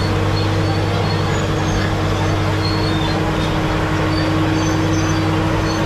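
Caterpillar D7G bulldozer's six-cylinder diesel engine running steadily, with short high squeaks now and then.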